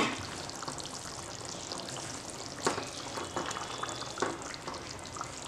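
Potato-onion curry gravy simmering in a non-stick kadhai while a wooden spatula stirs in paneer cubes: a steady low wet hiss with a few soft knocks from the spatula and pan.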